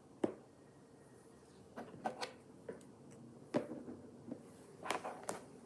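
Small plastic toy figures being handled and set down on a tabletop: a scatter of light knocks and clicks, about eight or nine in all, the sharpest just after the start and again around the middle.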